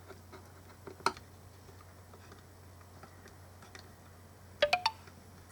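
Small plastic parts of a mini Bluetooth speaker clicking as they are handled and fitted: one sharp click about a second in, then three quick clicks near the end, over a faint steady hum.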